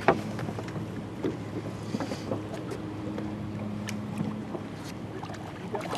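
Low steady hum of a boat motor that fades in and out, under light wind and water noise, with one sharp knock just after the start and scattered small clicks and knocks from the boat and tackle while a fish is played to the net.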